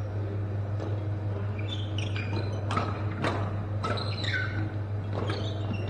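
Badminton shoes squeaking on the court floor in short chirps, with a few sharp smacks of racket on shuttlecock about half a second apart in the middle, over a steady low hum.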